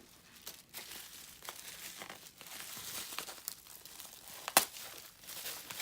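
Plastic packaging crinkling and rustling as a boxed speedcubing timer is handled and opened, with one sharp snap about three-quarters of the way through.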